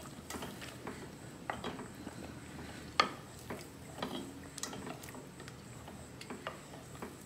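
A black cooking spoon stirring chicken in a stainless steel pot, with scattered light clicks and knocks as it scrapes and taps the pot, the sharpest knock about three seconds in.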